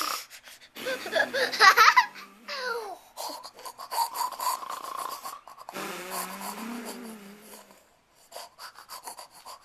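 A person imitating sleep noises with the voice: a loud, wavering squeal about a second in, then long wheezy, snore-like breaths.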